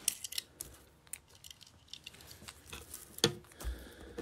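Faint scattered clicks and taps of die-cast toy cars being handled and set on a plastic track, with one sharper click about three seconds in.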